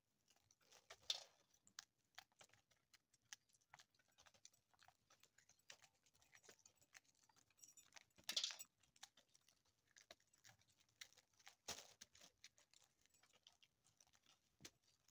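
Dried popcorn kernels being twisted off the cob by hand and dropping into a basin: faint, irregular clicks and ticks, with a few louder clicks about a second in, past the middle and near the end.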